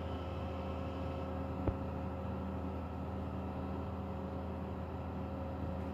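Steady low background hum, with one soft tap about a second and a half in.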